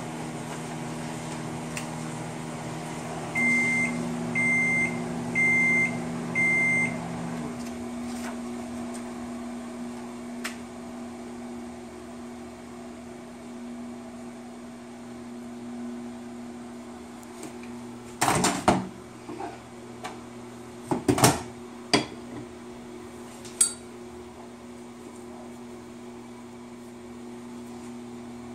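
Microwave oven running with a steady hum, then four short, high beeps about a second apart as its cycle ends, after which part of the hum stops. Later come a few sharp knocks and clatters.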